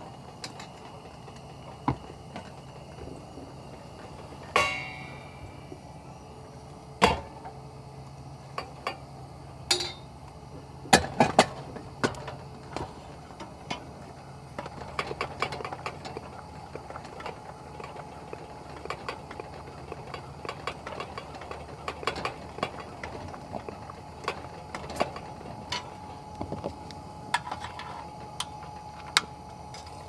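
Metal pressure lanterns being handled and set down: scattered clicks and knocks of metal and glass, with a ringing metallic clink about four and a half seconds in and a quick cluster of knocks around eleven seconds.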